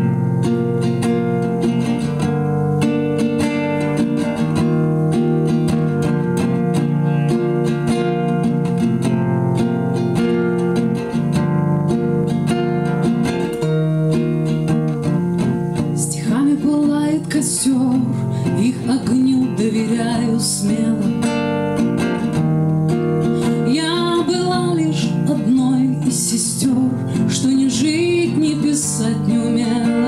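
Acoustic guitar played as a song's introduction, steady chords and picked notes; about halfway through a woman's voice comes in singing over the guitar.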